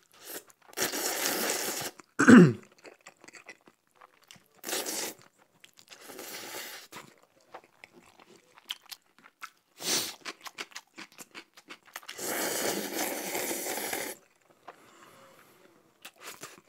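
Close-miked noodle eating: jajangmyeon noodles slurped in several long rushes, with wet chewing and smacking clicks in between. A short vocal grunt comes about two seconds in.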